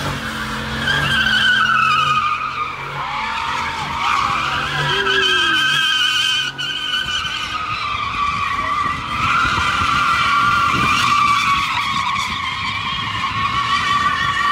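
Pickup truck doing burnout donuts: its tyres squeal without a break, the squeal wavering up and down in pitch, with the engine running hard beneath.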